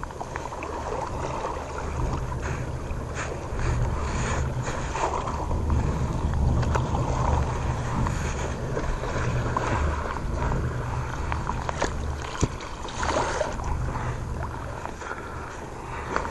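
Wind rumbling on a phone's microphone over water sloshing and splashing around a small boat, with one sharp knock about twelve seconds in.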